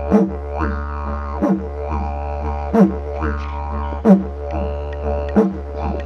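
Didgeridoo (yidaki) music: a steady low drone with a strong, regular accent a little over once a second and overtones sweeping down in pitch.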